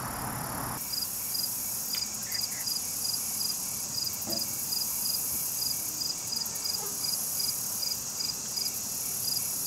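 Crickets and other insects chirping: a steady high trill, with one cricket's chirp repeating about twice a second.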